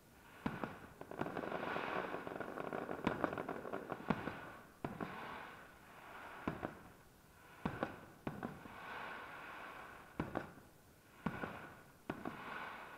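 Aerial firework shells bursting: about a dozen sharp bangs at irregular intervals, roughly a second apart, over a continuous wash of noise between them.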